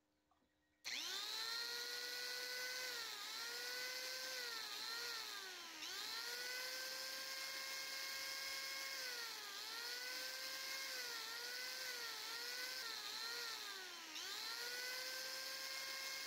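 Corded electric angle grinder starting up about a second in and then running with a high whine. Its pitch dips and recovers several times as the disc is pressed into the wood to smooth and shape the carving.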